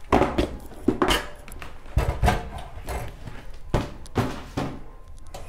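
Black hard ABS plastic carrying case of a portable gas stove being handled and moved on a table. It gives about ten irregular sharp knocks and clacks.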